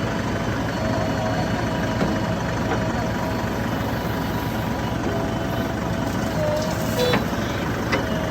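Heavy diesel machinery engine running steadily, with two sharp metallic knocks about seven and eight seconds in.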